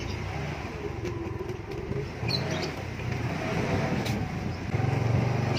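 Inline skate wheels rolling over rough asphalt and then brick paving, a continuous low rumble that grows louder near the end, with a few sharp clicks.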